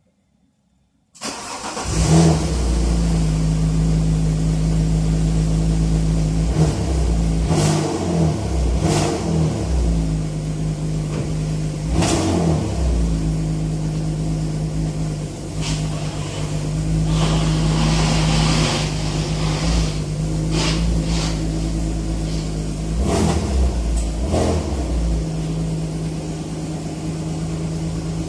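Alfa Romeo GT 3.2's Busso V6 engine starting about a second in with a flare of revs, then idling. The throttle is blipped several times midway, and it settles into a steady idle near the end.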